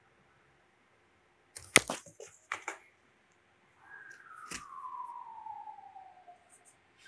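A few sharp scrapes and knocks on a cardboard box about two seconds in, then a faint whistle-like tone that glides steadily down for about two and a half seconds, with one more sharp click partway through it.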